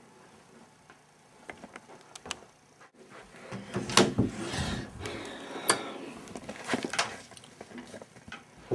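A plastic credit card being worked into the gap between a door and its jamb to push back the spring latch: scraping and rattling with several sharp clicks, starting about three and a half seconds in.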